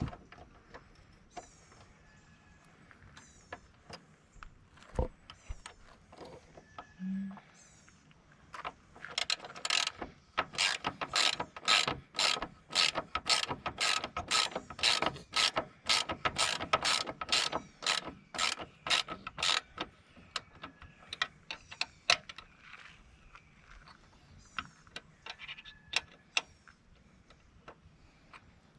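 Ratchet wrench clicking as it turns a hood-latch bolt, a steady run of about three clicks a second for roughly ten seconds in the middle, with scattered lighter clicks and taps of tool handling before and after.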